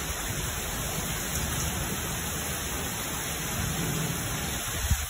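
Heavy rain pouring down onto a concrete patio and yard in a steady, even hiss. A short low thump comes near the end.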